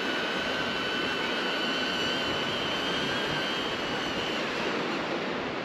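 HoverAir X1 palm-sized drone's propellers whining with a steady high tone, fading out about four and a half seconds in, over a wash of wind and surf.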